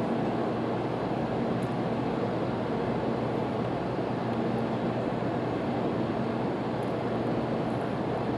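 Steady running noise of an 800 Series Shinkansen heard inside the passenger car: a constant rush of wheel and air noise with a low steady hum underneath.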